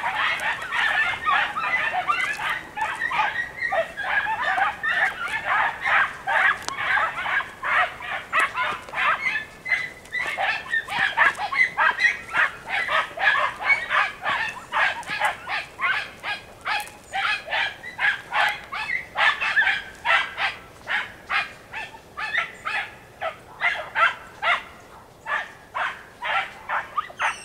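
A pack of Andalusian podencos giving tongue, yelping and barking non-stop as they chase a rabbit on its scent through the brush. There are two or three high barks a second, several dogs overlapping at first, and the calls thin out a little near the end.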